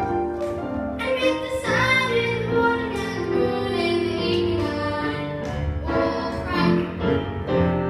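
A girl singing a melody into a handheld microphone, with music accompanying her voice.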